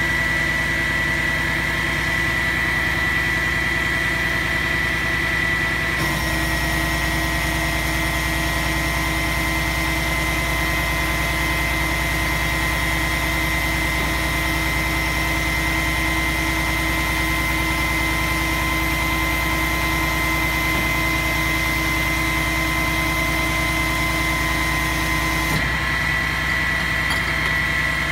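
Skip-loader truck's diesel engine idling steadily. Its sound changes about six seconds in, with more high hiss and new steady tones, and changes back near the end.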